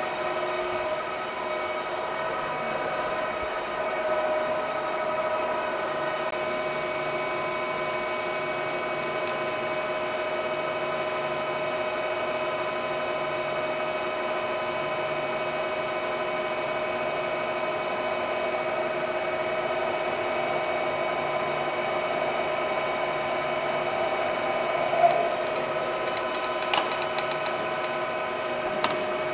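Large manual metal lathe running steadily at 710 RPM, a constant whine made of several tones, while a centre drill in the tailstock chuck cuts into the end of a spinning solid round bar. A few short sharp clicks near the end.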